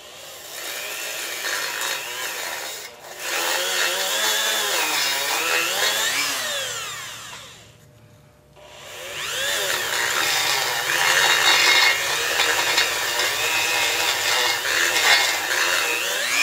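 Handheld rotary tool spinning a small wire brush against the finned cylinder of a 1930 Briggs & Stratton FH engine block, scrubbing off dirt. A whine that wavers up and down in pitch as the tool is pressed on and eased off, in two long spells with a short pause about eight seconds in.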